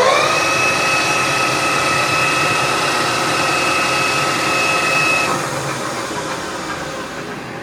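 AYEL-TECH CD6241 metal lathe's headstock running, with a steady high gear whine as it reaches full speed. About five seconds in the whine stops and the machine winds down, its noise fading away.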